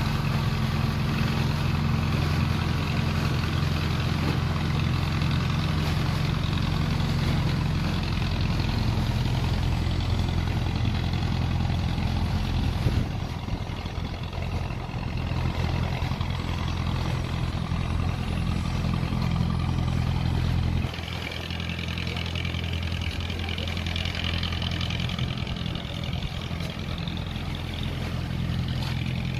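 Motor launch engine running steadily at a low, even note; it eases off slightly about halfway through and again about two-thirds of the way in.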